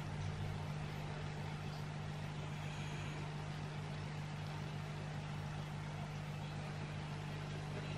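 Steady low hum with a faint even hiss above it: background room tone.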